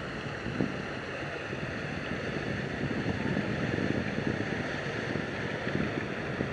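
Wind buffeting the microphone over a steady mechanical hum, with a river motor ship underway.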